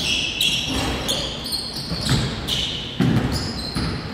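Basketball game play on a gym court: a basketball bouncing a few times, with repeated short, high-pitched squeaks typical of sneakers on the floor.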